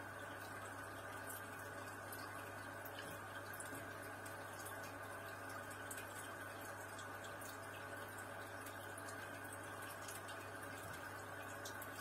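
Aquarium air-driven sponge filters and an air line bubbling steadily: streams of air bubbles rising and breaking at the water surface, with many small pops and drips over a steady low hum.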